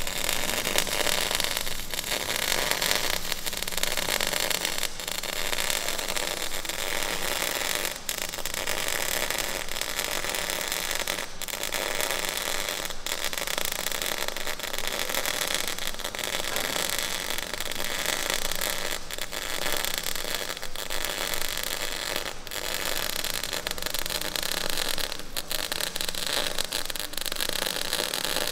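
Electric arc welding on the steel hull of a Churchill Mk IV tank: the steady crackling sizzle of the arc, peppered with sharper pops, briefly dipping about eight seconds in.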